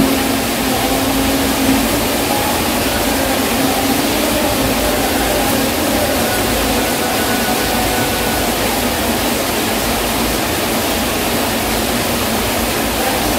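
Heavy rain falling: a steady, even hiss that does not change.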